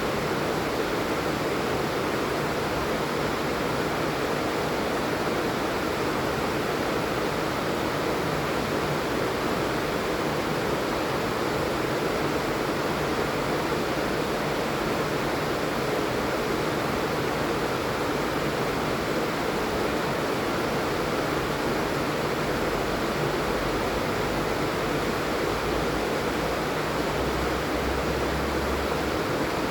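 Rain falling steadily, an even, unbroken hiss of rainfall.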